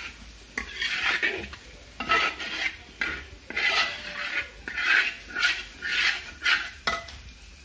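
A utensil scraping and stirring tripe fry around a pan in short, irregular strokes, roughly two a second. The tripe is nearly dry and well browned at this point in the frying.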